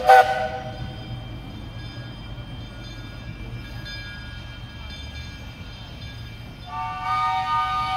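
A departing train sounds a short, loud chord toot at the start, then its low rumble carries on faintly, and about seven seconds in a long multi-note blast begins and is still sounding at the end.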